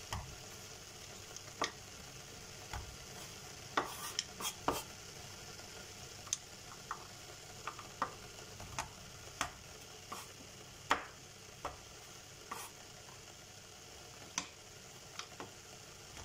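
Chef's knife chopping a bar of dark chocolate on a wooden cutting board: irregular sharp knocks of the blade going through the chocolate into the board, roughly one or two a second, over a steady faint hiss.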